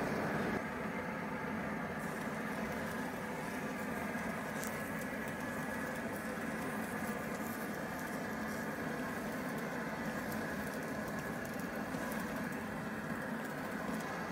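Stick welding arc crackling and sizzling steadily as a nickel-iron 55 (ENiFc-CI) electrode is run, joining a mild steel plate to a cast iron brake drum.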